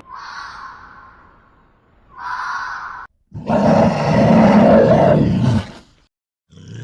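Two short, higher animal calls, then a large animal roaring loudly for about two and a half seconds before cutting off.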